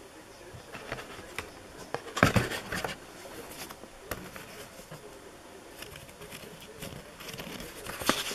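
Handling noise of a cardboard fireworks box, its contents and a paper leaflet: irregular rustles, crinkles and light knocks, the loudest flurry about two seconds in and more near the end.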